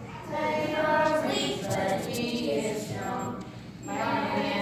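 A group of children singing a song together in phrases, with a short break between lines about three and a half seconds in.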